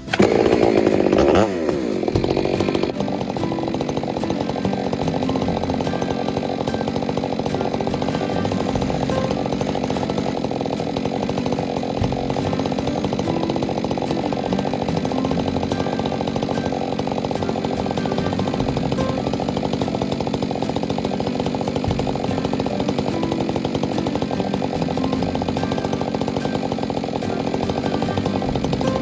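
A two-stroke chainsaw running steadily at speed. About the first second and a half is louder, and its pitch falls.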